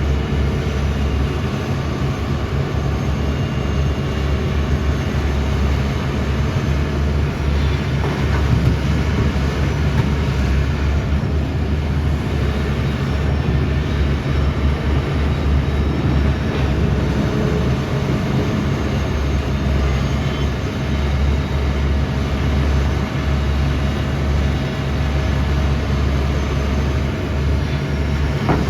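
Tata Hitachi 470 excavator's diesel engine running, a deep continuous drone.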